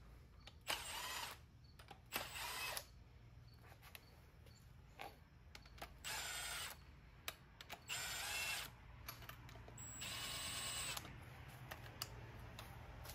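Small electric power tool, such as a drill or driver, running in five short bursts of under a second each, its motor pitch rising and falling within each burst, while bolts are run in.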